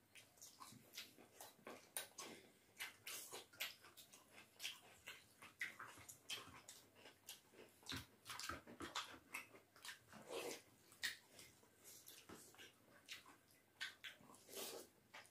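Rice and dal eaten by hand: an irregular run of wet mouth smacks and chewing clicks, several a second.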